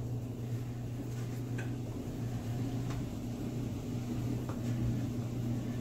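Steady low machine hum with a few faint, light clicks.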